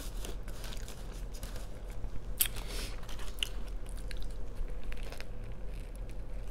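A person chewing and biting crunchy food close to the microphone, with scattered crunches and one louder crunch about two and a half seconds in.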